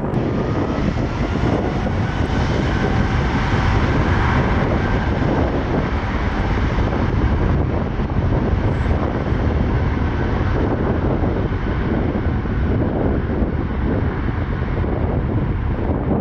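Jet airliner's engines running as it passes close by: a steady loud rush with a faint whine in the first few seconds.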